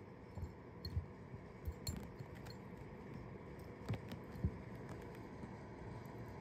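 A kitten pawing at water in a ceramic bowl: scattered soft, low thumps and a few light clicks from paws slapping the water and knocking the bowl, over a faint steady hum.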